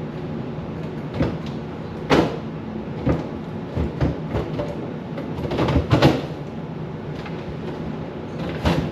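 Irregular knocks and clunks of shelves, containers and items being handled in a refrigerator during cleaning, over a steady low hum.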